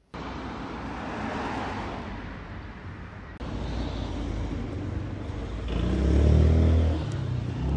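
Road traffic: the steady noise of passing cars, then a motor vehicle's engine passing close, loudest from about two seconds before the end.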